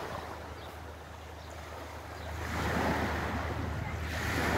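Small sea waves washing in on a pebble shore, one wash swelling up about halfway through and another near the end, over a low steady rumble of wind on the microphone.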